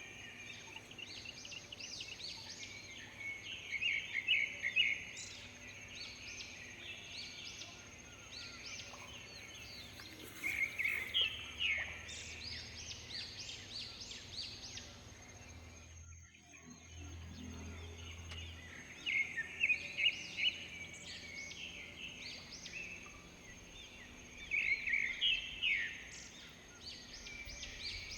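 Birds singing in tropical forest ambience, with a loud, rapid chattering song phrase that comes back about every seven seconds amid other chirps, over a steady high-pitched hum. The sound drops out briefly just after the middle.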